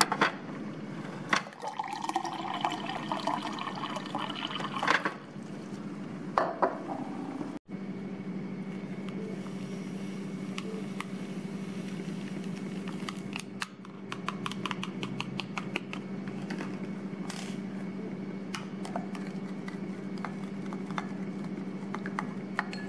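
Water running from a dispenser into a glass tumbler, its pitch rising as the glass fills. After a cut, a spoon clinks rapidly against the glass while stirring a drink mix, over a steady low hum.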